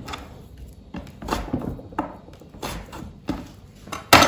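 Kitchen knife cutting pork ribs on a wooden cutting board: a series of dull knocks and thuds about every half second to a second, the loudest near the end.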